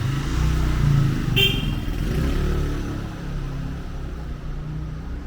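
A motor vehicle passes close by on the street, its engine revving, loudest about a second in and then fading. There is a brief high-pitched squeak about a second and a half in.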